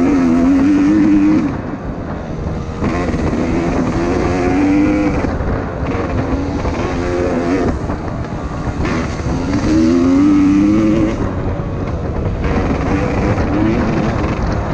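Enduro dirt bike engine running on a trail, its pitch rising and falling repeatedly as the throttle is worked. It is loudest in the first second or so and again about ten seconds in.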